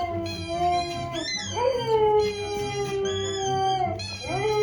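Dog howling: long drawn-out howls, one after another, each rising quickly in pitch and then sliding slowly down over about two seconds.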